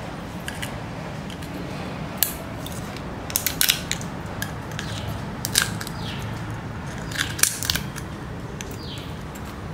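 Small pliers cracking and snapping pieces off a thin spiral seashell: sharp crunching snaps come in small clusters, once about two seconds in, then around three and a half, five and a half and seven and a half seconds, with a few fainter ticks between them.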